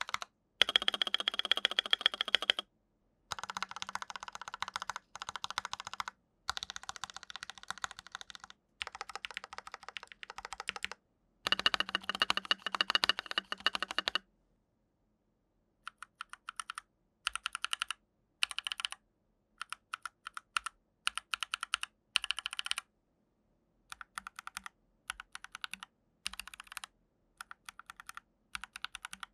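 Fast typing on a Rakk PIRAH mechanical keyboard in a typing sound test comparing its stock build with one fitted with new switches and thicker keycaps. Short clips of rapid key clatter are separated by abrupt cuts. The first half is louder and denser, and after a gap about halfway the clips turn shorter and quieter.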